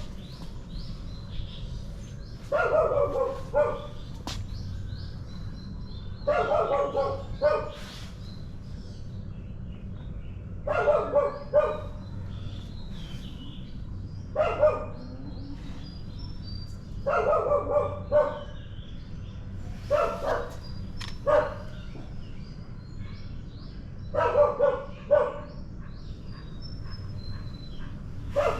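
A dog barking in short bouts of two to four barks, repeating about every three to four seconds, with birds chirping faintly.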